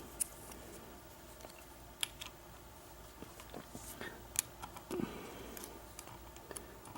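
Faint, scattered small metal clicks and scrapes of a thin lock pick and tension wrench being worked into a lock's keyway, with a few sharper clicks and a soft knock about five seconds in.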